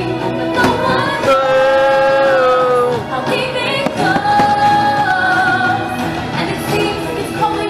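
Fireworks show soundtrack: music with long, held sung notes, with a few sharp fireworks cracks about half a second and a second in.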